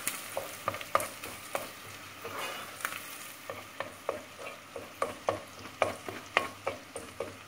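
Wooden spoon stirring onion, green pepper and tomato and pepper paste as they fry in oil in a pot: the spoon scrapes and taps against the pot about twice a second, over a light sizzle.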